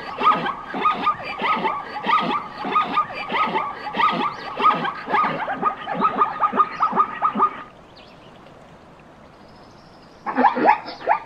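Zebra calls: a rapid series of yelping barks, about four a second, that breaks off near eight seconds in and starts again about two seconds later.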